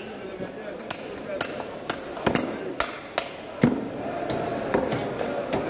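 A metal rod striking the spine of a large fish knife to drive the blade through a barracuda's backbone. There are about ten sharp, unevenly spaced metallic knocks, each with a brief ring.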